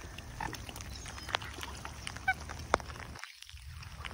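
A short waterfowl call about halfway through, over a steady low rumble of wind and a few sharp taps of rain hitting the microphone.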